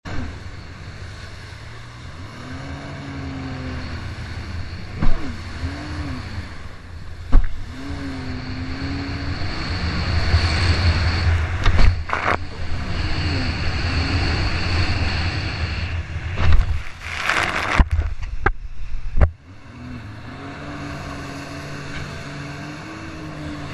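Sea-Doo personal watercraft engine revving up and down as the craft jumps ocean waves, over a constant rush of spray. Several sharp slaps from the hull hitting the water break in, the loudest two about 5 and 7 seconds in and a cluster near the end.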